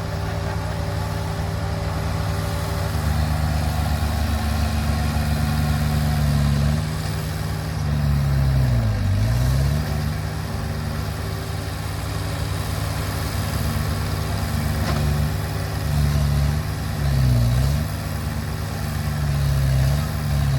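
Heavy-equipment diesel engine running steadily. Its pitch drops sharply and climbs back three times: about halfway through, near 17 seconds in, and at the end.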